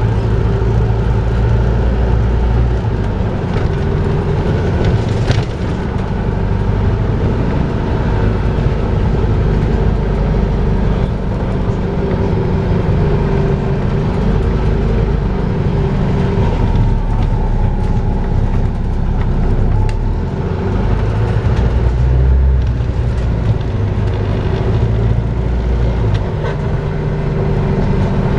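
Volvo B5LH hybrid double-decker bus running in service, its four-cylinder diesel and drivetrain giving a steady low hum. Over this runs the constant whining drone that bus enthusiasts call "hoovering", after its likeness to a vacuum cleaner.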